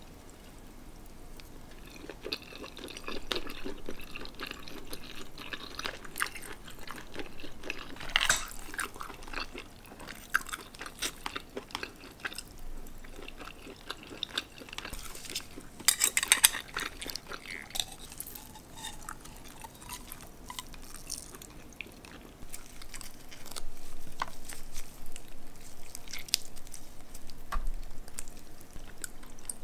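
Close-miked eating of steamed shellfish: wet chewing and squishing, with shells clicking and clacking against each other and the plate. Louder bursts of clacks come about 8 and 16 seconds in.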